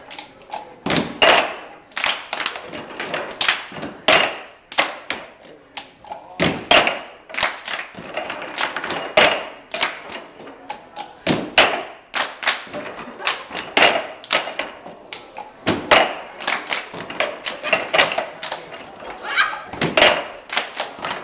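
Many people doing the cup game in unison: hand claps, taps and cups knocked and slammed on a wooden floor in a repeating rhythm, with a louder thud about every two and a half seconds.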